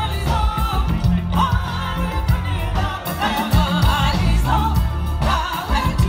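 Live band music with women singing over a steady bass and drum beat, heard from the audience.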